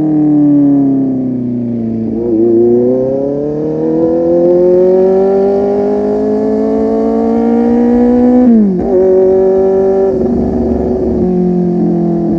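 Kawasaki Z800's inline-four engine through a full-system aftermarket exhaust while riding: the revs fall for about two seconds, climb steadily for about six seconds, drop sharply at an upshift, then hold fairly steady.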